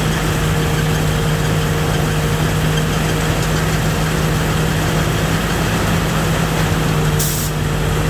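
Rice combine harvester's engine running steadily with a constant low drone, heard from on board the machine. A brief high hiss cuts in about seven seconds in.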